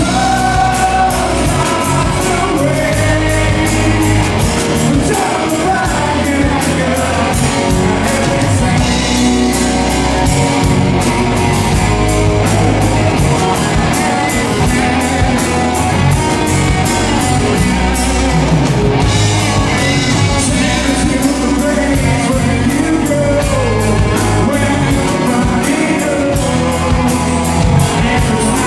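Rock music with a singer over a steady drum beat, playing at an even, loud level.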